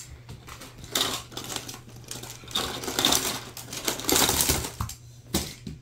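Plastic magnetic building tiles clattering and clicking against each other as they are shaken and dumped out of a fabric drawstring bag, in three bursts of rattling followed by a couple of single knocks near the end.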